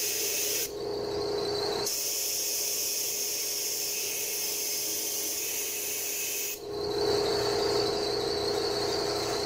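Compressed-air blow gun hissing as it forces coolant out of a 2018 Toyota Corolla's radiator. The hiss changes sharply in tone about one, two and six and a half seconds in.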